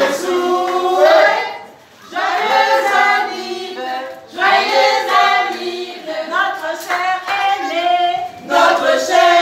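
Members of a choir singing together in sung phrases, with short pauses between lines about two and four seconds in.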